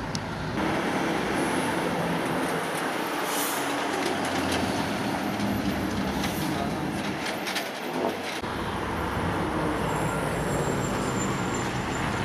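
Steady road traffic, cars and trucks passing on a wet street.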